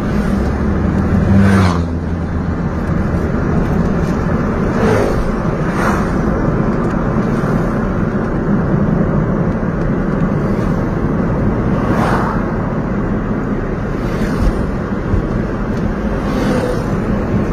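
Steady road and engine noise of a moving car on a highway, heard from inside the cabin, with a few brief swells of rushing noise.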